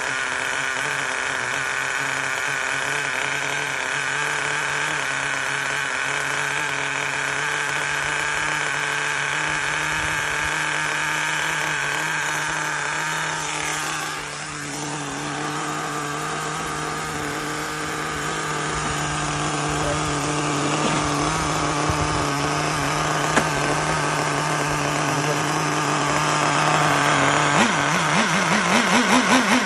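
Small nitro glow engine of a 1/10 Kyosho on-road RC car idling steadily on a test run after a seized engine was serviced. Near the end the throttle is blipped several times, the pitch rising and falling.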